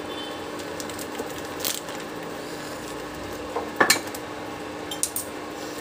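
A steel pan of ragda (boiled white peas) simmering with a faint steady hiss, a steady low hum that stops about three seconds in, and a metal spoon clinking against the pan twice, once about a second and a half in and once near four seconds.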